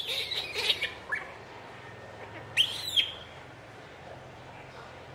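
A baby monkey screaming in distress: a quick cluster of shrill, high-pitched calls in the first second, then one more call about two and a half seconds in that rises and falls.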